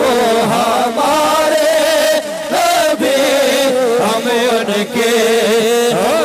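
Devotional chanting by a voice, sung in short phrases with a wavering, ornamented melody and brief breaks between phrases.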